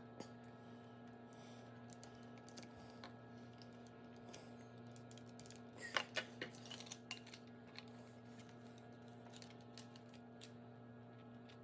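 Faint clicks and taps of plastic parts as a replacement battery is fitted into an opened PS4 controller, with a quick run of clicks about six seconds in, over a steady electrical hum.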